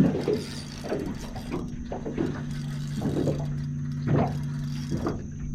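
A boat motor running with a steady low hum, under irregular mechanical clicking and ratcheting from a fishing reel as a hooked shark is played.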